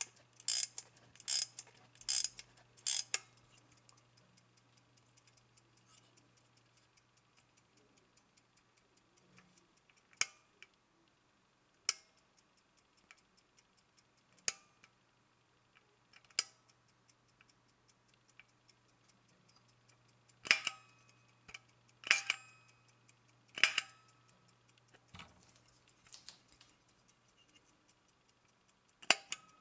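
Soviet AChS-1M aircraft cockpit clock ticking with a fast, even beat. Louder sharp clicks come from its side knobs being pressed and turned: a quick run of them at the start, a few single ones, then three more about two-thirds of the way through.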